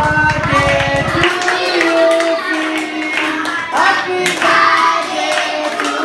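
A group of children singing a song together while clapping their hands in time. A low engine drone runs underneath and stops about a second in.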